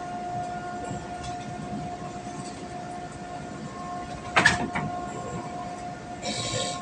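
A steady machine hum runs throughout, with a sharp knock about four and a half seconds in and a short hiss near the end.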